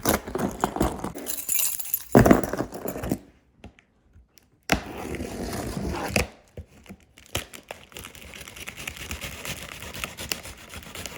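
Handling noises: irregular clicks and knocks with rustling and crinkling, including a stretch of hissy crinkling about five seconds in.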